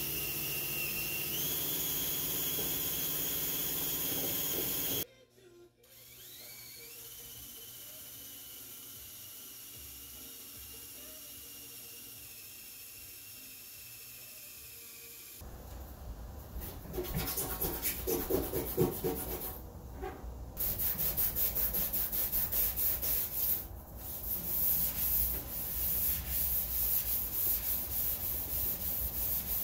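Small cordless power tool with an abrasive disc whirring as it grinds the painted steel of a kei truck's cab, its pitch stepping up about a second and a half in; after a cut, a quieter cordless tool motor spins up and runs steadily. From about halfway, a scuff pad is rubbed back and forth by hand over the cab panel in uneven strokes with short pauses, scuffing the paint.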